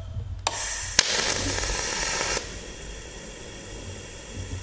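TIG welding arc from a Unimig Razor 200 AC/DC TIG welder: the arc starts with two sharp clicks, then hisses steadily for about a second and a half before cutting off suddenly. A quieter hiss over a low hum carries on afterwards.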